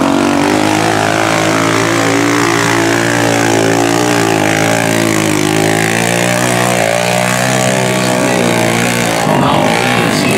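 ATV engine running hard at steady revs under heavy load as it churns through deep mud, over a hiss of splashing mud and water. The steady engine note ends about nine seconds in.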